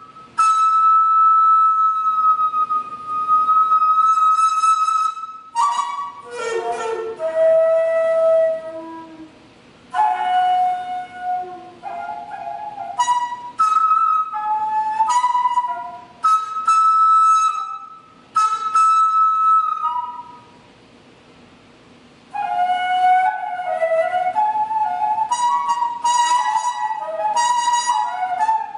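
Daegeum, the Korean transverse bamboo flute, playing a slow solo melody in long held notes and short phrases. Its tone is bright and rich in overtones. There is a pause of about two seconds about two-thirds of the way through.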